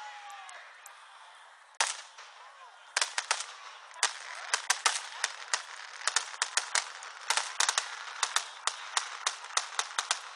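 Fireworks bursting overhead: one sharp bang about two seconds in, then from about three seconds on a rapid, irregular run of sharp cracks and pops, several a second, from crackling shells.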